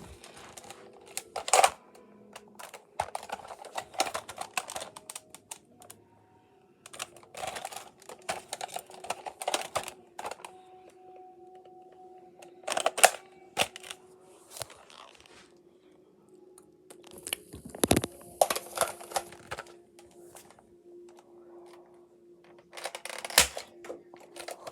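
Toy Nerf-style hunting rifle being reloaded and fired: runs of plastic clicking and rattling from working the action, broken by a few sharp, louder snaps.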